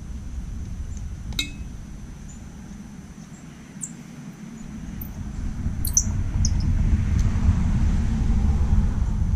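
A low rumble that swells about halfway through and stays louder, with a few sharp light clicks and taps of small parts being handled, one near the start and a cluster about two-thirds of the way in.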